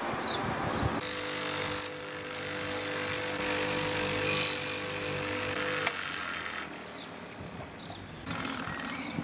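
Bench grinder with an abrasive fibre wheel running while a metal hinge plate is pressed against the spinning wheel to scour off its finish. It makes a steady motor hum under a rasping hiss, and the hum's tone drops away about six seconds in.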